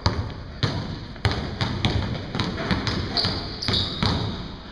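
Basketballs dribbled hard on a gym floor during between-the-legs crossover moves, with sharp bounces about two to three a second in an uneven rhythm, echoing in the hall.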